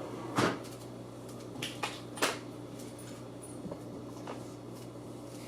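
Handling noises: a few sharp knocks and clicks of objects being picked up and set down, the loudest about half a second in and just after two seconds, over a steady low hum.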